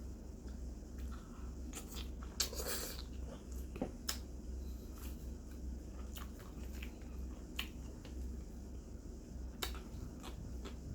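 A person eating, with scattered small clicks and smacks of chewing and mouth sounds. There is a brief rustle about two and a half seconds in, over a steady low hum.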